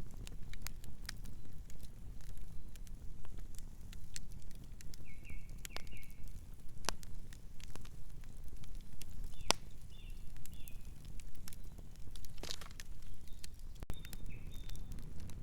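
Campfire burning with a steady low rumble and irregular sharp crackles and pops of burning wood. A few short, high chirps come in three brief clusters.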